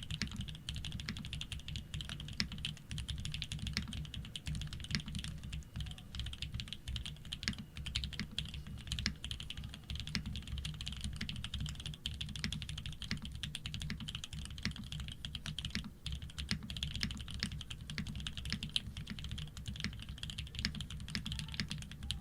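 Continuous fast typing on a Shark60 custom mechanical keyboard with Fierce girl switches, PBT keycaps and an aluminium plate with no foam: dense, uneven keystroke clicks, many per second, at a steady level.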